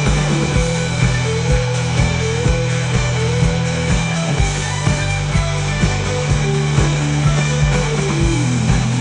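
Instrumental rock music: a steady drum beat over sustained bass and electric guitar, with a melodic line rising and falling.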